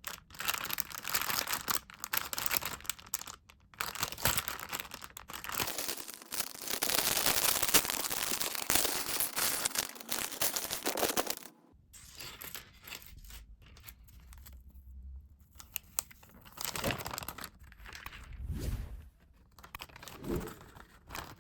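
Plastic LEGO polybag being torn open and crinkled, loudest about halfway through. It then gives way to fainter rustling with a few light clicks and thumps.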